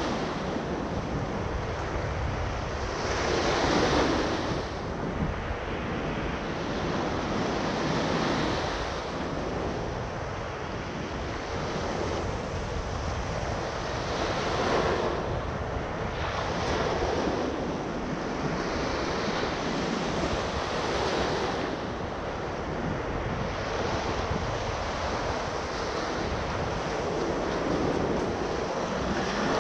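Small surf breaking and washing up a sand beach, the wash swelling every few seconds as each wave comes in. A low wind rumble on the microphone runs underneath.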